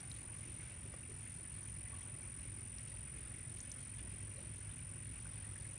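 Steady low outdoor background rumble and hiss, with no distinct events.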